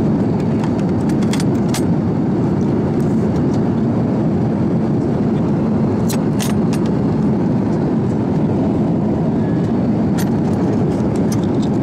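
Steady in-flight cabin noise inside an Airbus A350-900 airliner: a constant low rushing roar, with a few faint clicks scattered through it.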